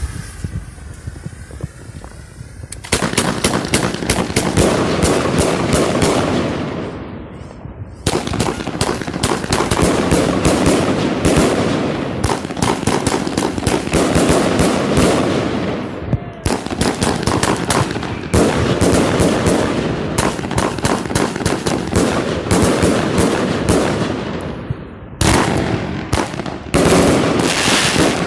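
Multi-shot firework battery (cake) firing. About three seconds in, rapid runs of shots and bursts start in quick succession, broken by a few short lulls.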